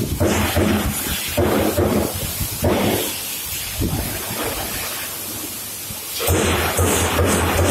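Strippit LVD Siena 1212 CNC turret punch press punching sheet metal in a rapid series of hits. The hits thin out for about three seconds in the middle, then come again densely near the end.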